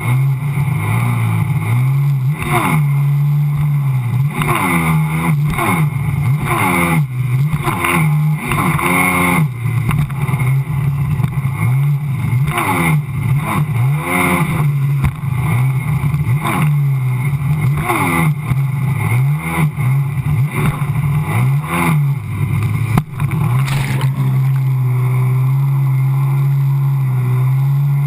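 Sea-Doo personal watercraft engine and jet drive running at speed, its revs rising and falling repeatedly, with the rushing hiss of spray and wind.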